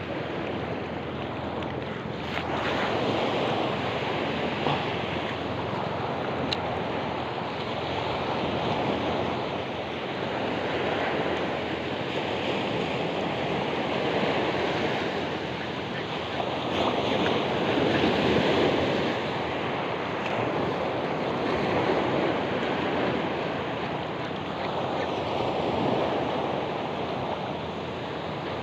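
Small ocean waves breaking and washing up a beach, the surf swelling and fading every few seconds.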